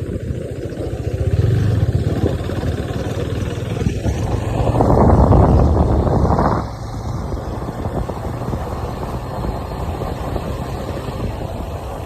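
Motor vehicle engine and road noise, a steady low rumble that swells louder for about two seconds midway, as if a vehicle passes close by.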